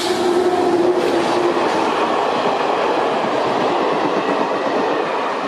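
SNCF BB 17000-class electric locomotive passing close, its steady hum fading out in the first second or two, followed by its train of stainless-steel DEV coaches rolling by with loud, continuous wheel-on-rail noise and a sharp click at the start.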